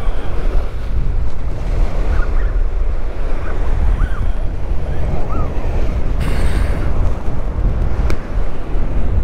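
Wind buffeting the microphone over surf washing against jetty rocks, a steady loud rumble and hiss. A short burst of hiss comes about six seconds in and a single sharp click near the end.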